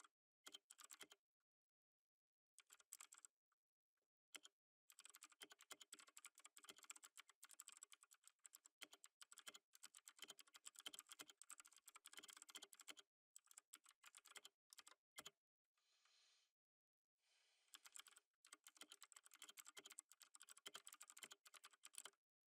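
Faint typing on a computer keyboard, fast runs of key clicks broken by short pauses.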